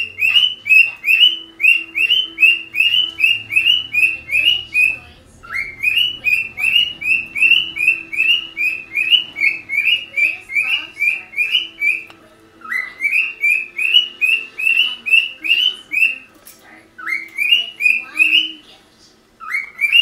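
Cockatiel mimicking a car alarm, whistling runs of short rising chirps at about three a second. Each run opens with a longer upward sweep, and the runs break off and start again several times.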